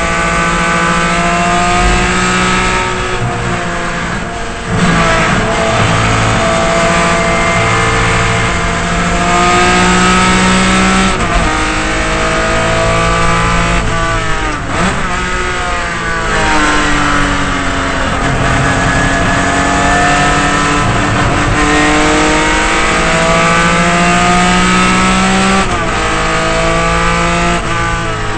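Race-prepared Datsun 240Z straight-six engine under hard acceleration, heard from inside the cabin. Its pitch climbs steadily through each gear and drops sharply at gear changes, about four times.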